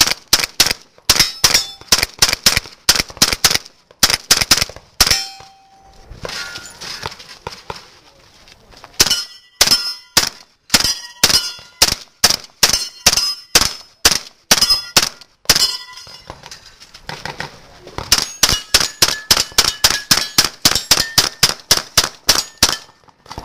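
A pistol-caliber AR-style carbine firing strings of shots at steel targets, which clang and ring on hits. The firing stops twice briefly, then ends with a fast run of shots.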